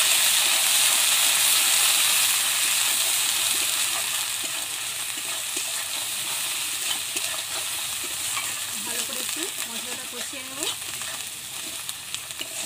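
Ginger paste and spices sizzling in hot oil in a metal wok while a metal spatula stirs them. The sizzle is loudest at first and dies down after a few seconds, with a few clinks of the spatula against the pan later on.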